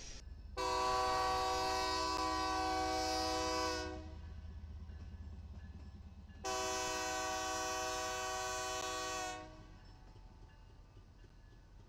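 BNSF diesel locomotive's air horn sounding two long chord blasts of about three seconds each, with a short gap between, as the locomotive reaches a road grade crossing. Beneath the horn is the low rumble of the locomotive's diesel engine.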